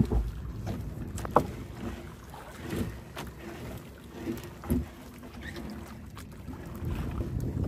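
A few sharp knocks and thumps on a small fishing boat as a sinking gill net is hauled aboard, the loudest about one and a half seconds in. Under them is a low rumble of wind on the microphone that grows louder near the end.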